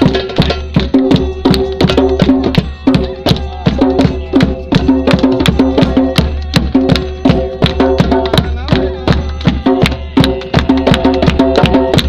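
A drum played in a quick, steady rhythm, several strikes a second, over steady held tones.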